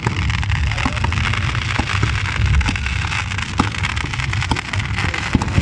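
Fireworks display going off: dense crackling with sharp pops and bangs scattered through, over a low rumble.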